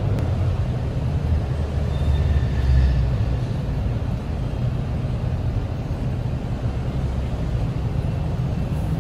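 Steady low rumble of road traffic, swelling slightly about two to three seconds in.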